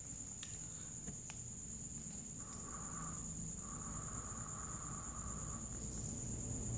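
Vape drawn on twice: a short airy hiss about two and a half seconds in, then a longer one lasting about two seconds. A steady high-pitched tone sits underneath.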